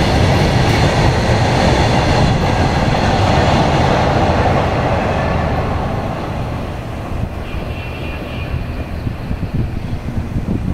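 Freight train of open-top wagons rolling past on the rails, a loud dense rumble and hiss that fades a little over halfway through as the last wagons go by and the train draws away.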